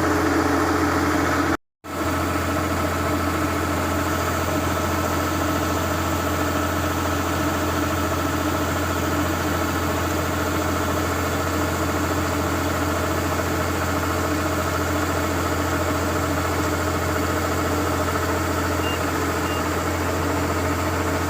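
Kubota Harvest King combine harvester's diesel engine running steadily, with the sound cutting out for a moment about two seconds in.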